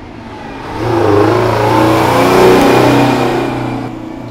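A 1975 White 4000 truck with a non-turbo Detroit 8V71 V8 driving past close by. Its engine note swells about a second in, holds while the truck passes and fades near the end.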